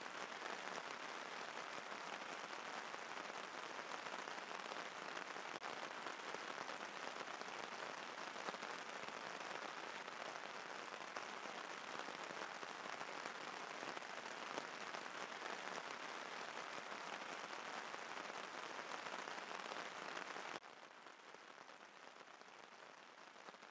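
Steady rain making an even hiss, which drops suddenly to a quieter hiss about twenty seconds in.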